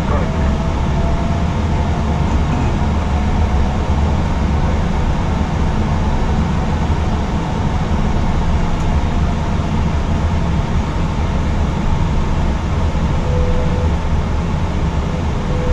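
Steady low rumble of an Airbus A320's engines idling and its air conditioning, heard inside the cockpit during taxi.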